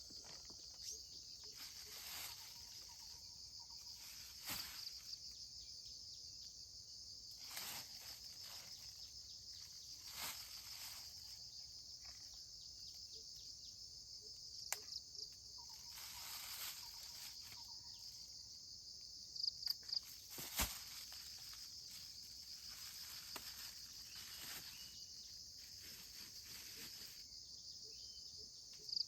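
Steady high-pitched insect chorus from crickets or similar insects, with scattered short rustling noises and a quick run of sharp chirps about two-thirds of the way in.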